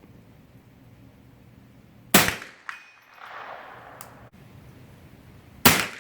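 Two rifle shots about three and a half seconds apart. The first is followed half a second later by a short metallic ping, a steel gong target being hit, and then an echo rolling back from the range.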